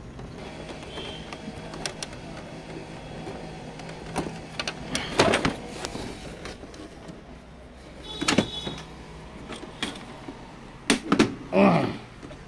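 Hands working the plastic casing and wiring of an opened HP ink tank printer that is switched off: scattered small clicks, with louder knocks and rattles about five seconds in, about eight seconds in, and several near the end, over a faint steady hum.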